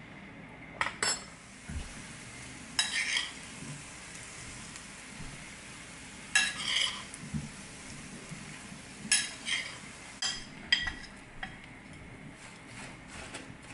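Metal spoon scraping and clinking against a ceramic bowl as buttered roasted cobnuts are spooned out onto kitchen paper, in short scrapes every few seconds. Near the end the nuts slide and rattle lightly as the bowl is tipped out.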